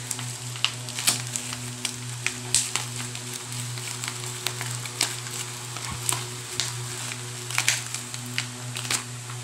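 Black plastic courier mailer bag crinkling and crackling as it is handled and pulled open by hand, in irregular sharp crackles. A steady low hum runs underneath.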